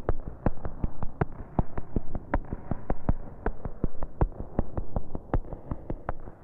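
Electronic synthesizer music: a fast, irregular stream of sharp clicks, about five or six a second, over a low hum.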